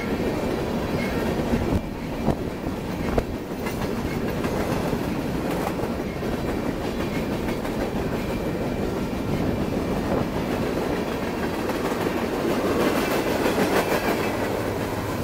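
Freight train of covered hopper and tank cars rolling past close by: a steady rumble and clatter of steel wheels over the rails, with a couple of sharp clanks a few seconds in. It grows a little louder near the end.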